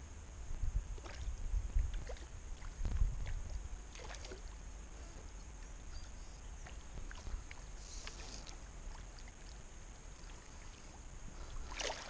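Kayak sitting on a calm creek: soft knocks and water sounds around the hull, with a few low thumps in the first three seconds. A short splash on the water surface comes near the end.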